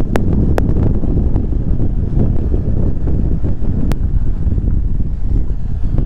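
Riding a KTM 390 Adventure motorcycle: heavy wind buffeting on the microphone over the running engine, with three sharp clicks, two near the start and one about four seconds in.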